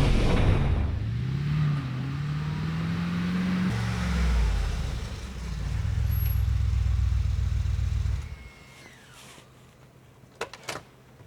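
Mercedes-AMG G 63's 4.0-litre twin-turbo V8 running under load, its note rising for a few seconds, dropping, then holding deep and steady before stopping abruptly about eight seconds in. A few sharp clicks follow near the end.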